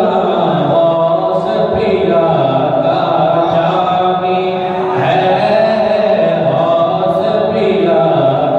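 A man's voice singing a devotional Urdu kalaam (naat or manqabat) into a microphone, in long, held melodic lines that bend slowly in pitch.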